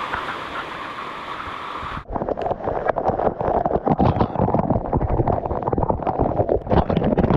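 Background music for about two seconds, then it cuts off abruptly. Waterfall water then pours and splatters right onto the microphone in a dense, irregular pattering over a heavy low rumble.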